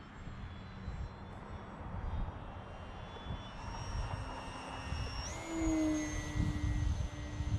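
Multiplex AcroMaster Pro RC aerobatic plane flying overhead: the steady whine of its electric motor and propeller shifts in pitch with the throttle, jumping up sharply about five seconds in, over a low rumble.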